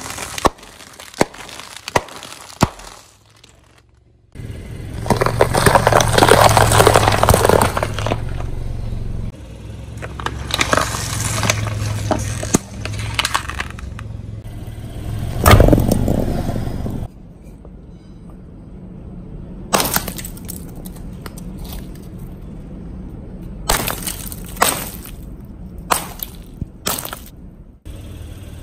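A car tyre rolling slowly over sealed snack bags and other objects and crushing them: a run of crackling crunches and sharp snaps, with one loud pop about halfway through.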